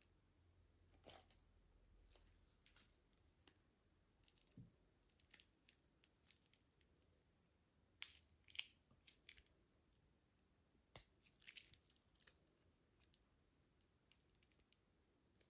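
Faint, scattered sticky clicks and small crackling squishes of slime being worked by hand, with a few louder clusters partway through.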